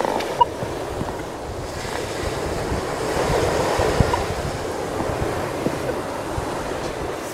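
Ocean surf washing on the beach, with wind buffeting the microphone; the wash swells a little about three to four seconds in.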